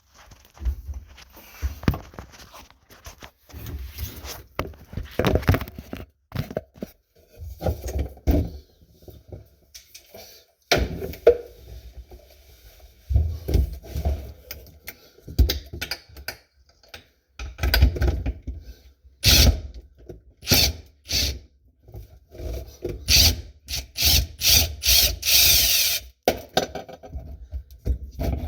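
Hand tools and faucet parts knocking, clicking and scraping irregularly as an old bathroom sink faucet is worked loose and taken off, with a longer scraping stretch near the end.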